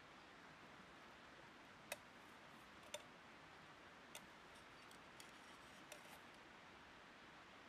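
Eating utensil clicking against a small metal pan, five light clinks a second or so apart over a faint steady hiss.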